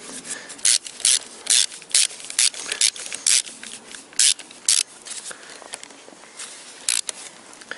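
Hand ratchet wrench clicking in short bursts, about two a second, as it tightens the flywheel bolts onto the crankshaft of a Toyota VVT-i engine. The bursts stop about five seconds in, with one more near the end.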